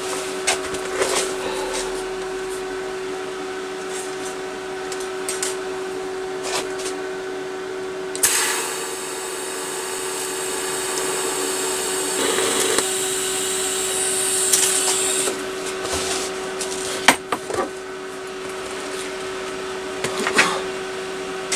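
TIG welding arc hissing and buzzing steadily for about seven seconds, starting about eight seconds in, as two pieces of thin pipe are fused together with little filler rod. A steady hum runs underneath, with scattered clicks and knocks of handling before and after the weld.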